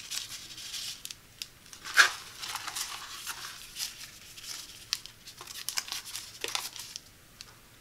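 Paper wrappers of individually wrapped Band-Aid bandages crinkling as they are shuffled between the fingers, a string of small crackles with one sharper, louder crackle about two seconds in. The handling stops shortly before the end.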